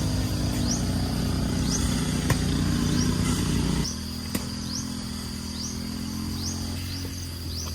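Small petrol engine running steadily, easing to a lower level about four seconds in. Short rising chirps repeat about once a second above it.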